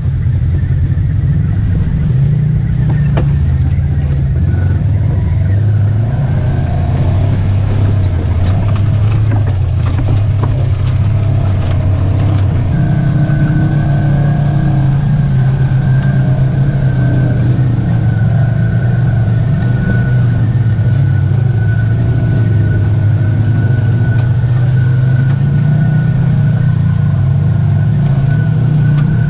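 Polaris RZR side-by-side engine running steadily while driving on a trail, with a few scattered knocks in the first half. About halfway through the engine note steps up and a steady high whine joins it.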